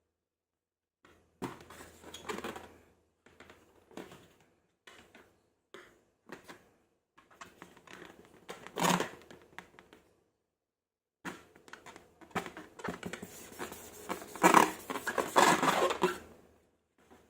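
Slime-making handling sounds: irregular crackling, clicking and scraping in short bursts with pauses, growing busier and louder in a long stretch near the end.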